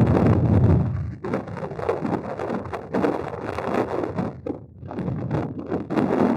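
Wind buffeting the microphone: a heavy low rumble for about the first second, then gusty and uneven, easing briefly a little after the middle.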